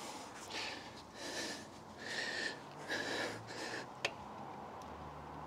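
A man's heavy, strained breaths, about five in a row, as he heaves on a spanner against an over-tightened motorcycle rear axle nut, then a single sharp click about four seconds in.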